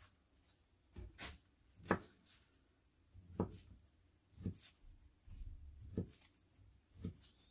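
Kitchen knife slicing through a soft peeled sweet potato, the blade knocking down onto the stone countertop through a paper towel: about seven faint, dull knocks, roughly one a second, at an uneven pace.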